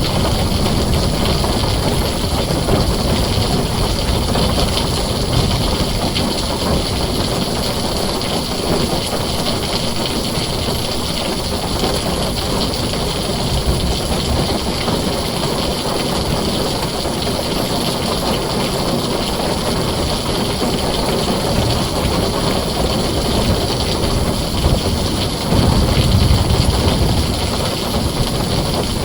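Heavy rain falling steadily on a tin roof, with a low rumble of thunder swelling briefly near the end.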